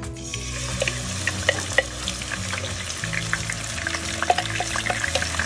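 Blended garlic, galangal and ginger paste sizzling as it drops into hot oil in a wok. A wooden spoon scrapes and taps the paste out of a glass blender jar, giving a scatter of short clicks over the sizzle.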